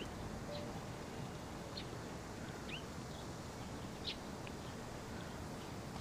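Small birds chirping now and then, with short high chirps about a second apart and one quick rising chirp midway, over a faint steady background noise.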